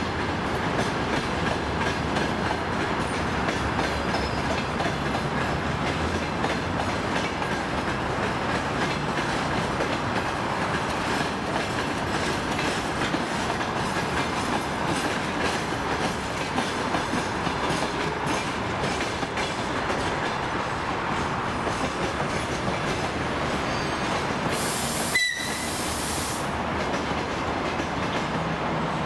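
Freight train wagons rolling past at speed: a steady rumble of steel wheels on the rails with a clatter of wheels over rail joints. About 25 seconds in the sound breaks off sharply and continues at a similar level.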